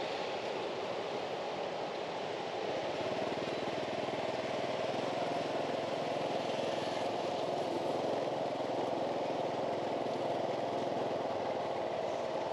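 Small motor-scooter engine running steadily at low road speed, with tyre and road noise, heard from the rider's seat.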